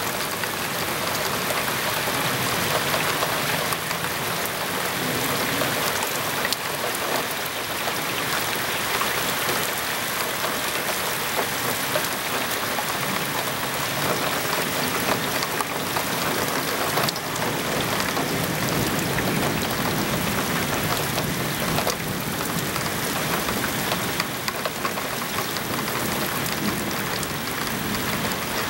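Steady rain falling in a summer storm: an even hiss of drops with small ticks of drops hitting surfaces.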